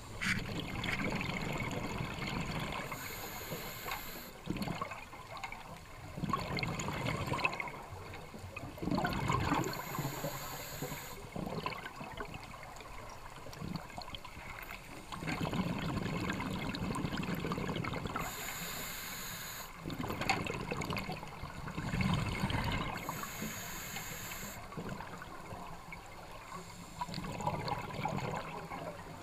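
Scuba breathing underwater through a regulator: the exhaled bubbles rumble and gurgle, then a short hiss of inhalation follows. The cycle repeats about every six to seven seconds.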